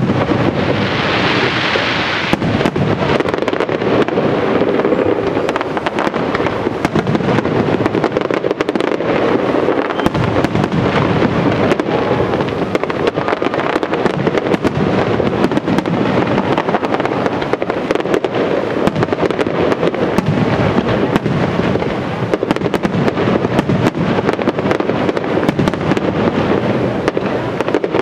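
Professional aerial fireworks shells bursting in a dense, unbroken barrage of bangs, overlapping so closely that they run together, with a brighter hiss over them in the first couple of seconds.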